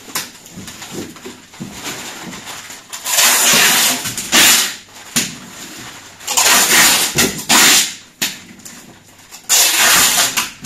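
Packing tape being pulled off the roll in several long, loud screeching pulls a couple of seconds apart, as a cardboard box is taped shut, with rustling of the box in between.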